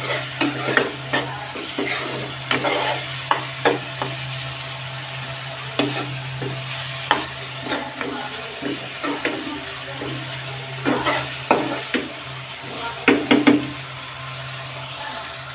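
Prawns and sliced onions sizzling in oil in a kadai while a metal spoon stirs them, scraping and knocking irregularly against the pan. A steady low hum runs underneath.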